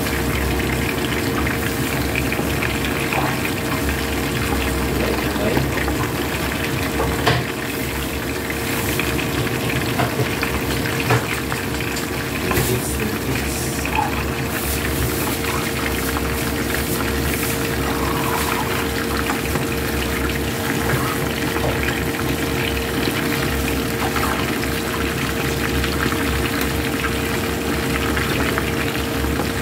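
Whole fish deep-frying in hot oil in a pan: a steady sizzle with scattered pops and crackles, over a steady hum.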